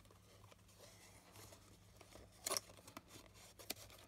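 Faint rustling and light clicks of a card-stock takeaway gift box as its curved lid flaps are handled and pressed closed, with one louder paper crackle about two and a half seconds in.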